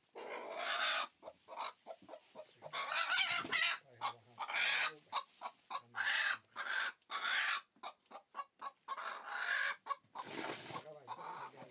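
Chickens clucking, a rapid run of short calls broken by several louder, longer squawking cries.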